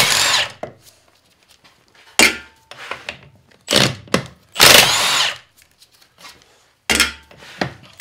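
Milwaukee cordless impact wrench running in short bursts as it backs out bolts on a transfer case housing, with the longest burst, about a second, near the middle.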